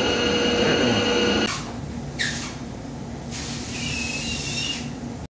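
Washer disinfector running: a steady mechanical whine with several held tones, giving way about a second and a half in to the hiss of water jets spraying inside the wash chamber, coming in rushes, with a brief squeal near the middle.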